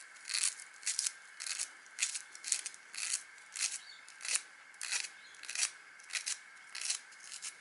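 Razor blade scraping and cutting through the fine copper windings of a hair clipper's electromagnet coil. The crisp strokes repeat about twice a second.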